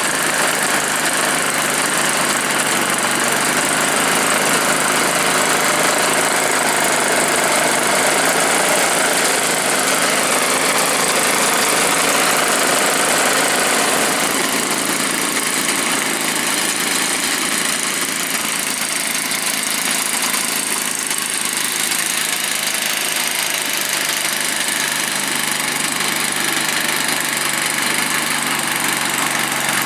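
Two-stroke engine of a homemade snowblower built from a Druzhba chainsaw, running steadily. Its tone thins somewhat about halfway through.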